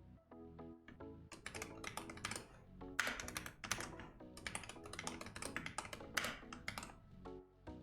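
Fast typing on a computer keyboard: a dense run of keystrokes from about a second in until near the end. Soft background music plays under it throughout.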